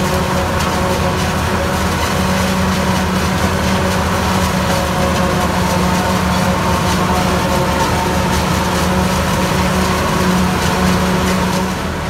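New Holland FX48 self-propelled forage harvester running under load, chopping maize and blowing the silage into a trailer, with a Ford 4000 tractor's engine running alongside. A loud, steady machinery drone with a constant hum.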